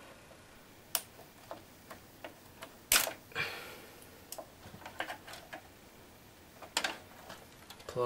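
Scissors snipping plastic zip ties among computer cables: a scattering of sharp, irregular snips and clicks, the loudest about three seconds in.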